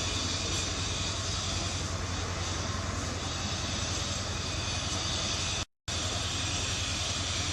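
A steady low hum under an even hiss, with no animal calls standing out; it cuts out for an instant a little after five seconds in.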